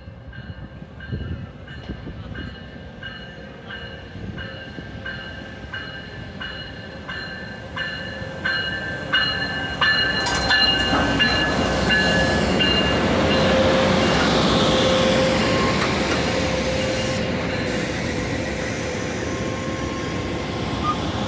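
Passenger train cars rolling past at low speed as the train brakes for a station stop. Wheels click over rail joints in a steady rhythm with high, steady squealing tones from wheels and brakes. The sound grows louder about halfway through.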